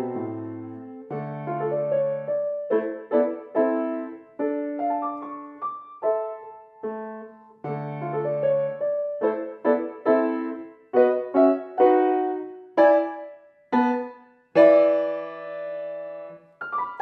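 Steinway & Sons grand piano played solo: a piece of quick notes and chords, with a loud chord about two-thirds of the way through held for about two seconds before the playing goes on.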